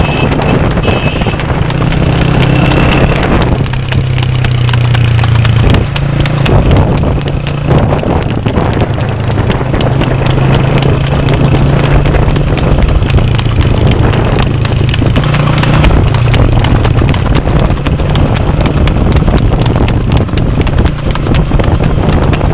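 A cart horse's hooves clip-clopping rapidly on an asphalt road at a fast trot, with a steady low hum underneath.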